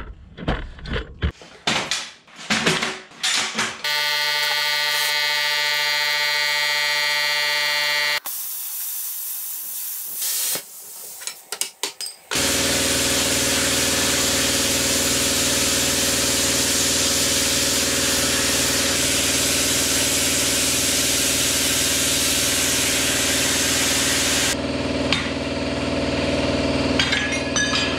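Handheld plasma cutter cutting a quarter-inch steel plate: a loud, steady hiss with a constant hum underneath, lasting about twelve seconds and stopping abruptly. Before it come a few knocks and clicks, then a few seconds of a steady humming tone.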